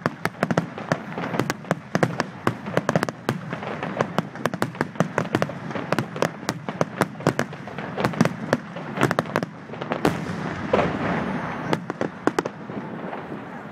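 Fireworks going off: a rapid run of sharp bangs and crackles, several a second, with a rushing hiss a little past the middle, and the bangs thinning out near the end.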